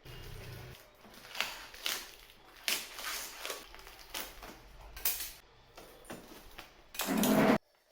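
Handling noises of an unboxing: irregular rustles, scrapes and light knocks of packaging and a handled device. Near the end comes a louder, half-second rustling scrape that cuts off abruptly.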